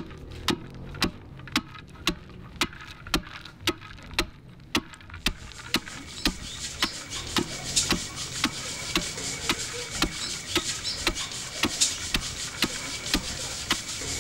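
Even, sharp clicking at about two clicks a second, with a rustling hiss of grain or flour being sifted through a wooden sieve that comes in about five seconds in and grows.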